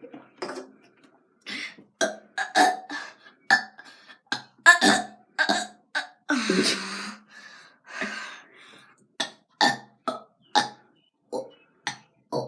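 A person burping over and over: a long string of short burps, with one longer, drawn-out burp about six seconds in.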